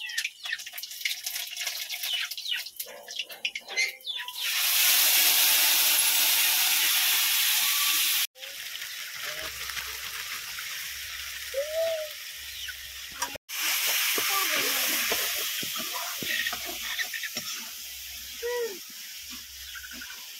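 Masala frying in hot oil in an iron kadhai. The loud sizzle starts suddenly about four seconds in as ingredients hit the oil, then settles into a steadier frying hiss, broken twice by a moment of total silence.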